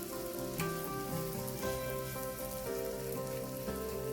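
Bread coated in a spiced egg mixture sizzling in a little oil in a frying pan, a steady crackling hiss.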